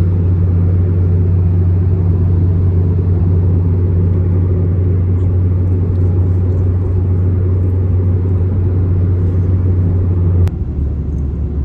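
Steady low rumble of a car's cabin while driving, engine and road noise together. Near the end it changes abruptly with a click and settles into a lower hum.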